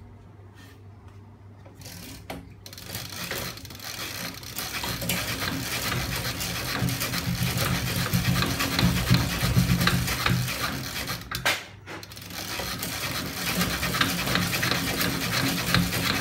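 Homemade magnet-assisted bicycle engine rig running: its weight-plate flywheel, chain sprocket and magnet linkage give a dense metallic clatter. A few slow ticks at first, then the clatter starts about two and a half seconds in and grows louder, cuts out briefly about two-thirds of the way through, and picks up again.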